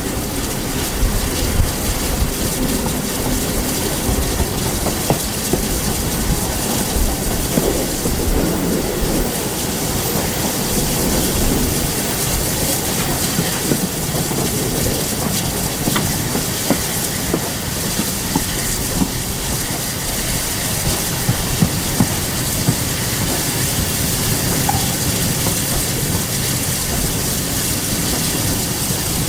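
Steam-hauled heritage train running along the line, a steady rumble with scattered wheel clicks over the rail joints.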